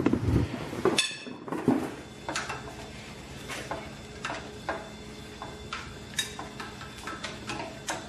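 Stripped Cummins 5.9 engine block turning over on its stand, with heavy clunks and a ringing metal clang about a second in. This is followed by irregular light metallic clinks of hand tools and parts against the bare block, over a steady low hum.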